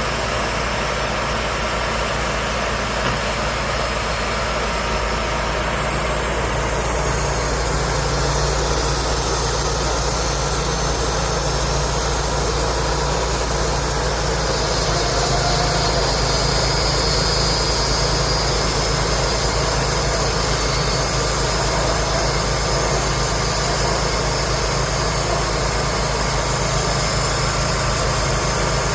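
An engine running steadily under a constant high hiss, with a shift in its upper tone about 7 seconds in.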